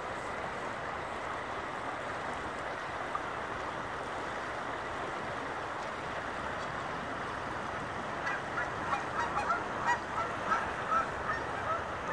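Creek water running steadily over the riverbed. From about eight seconds in, a bird calls over it in a quick series of short notes, two or three a second.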